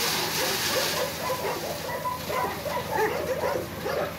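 Several dogs barking over and over. Underneath runs the low steady hum of the dump truck's engine, and the hiss of gravel sliding off its tipped bed fades out about a second in.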